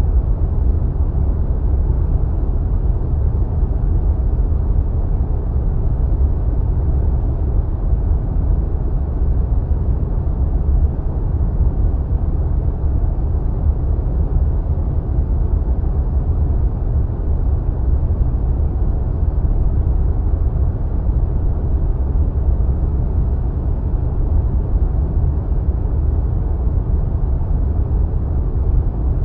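Wind sound effect: a steady, deep rush of wind like flying through clouds, with most of its weight in the low end and little hiss, even and without gusts.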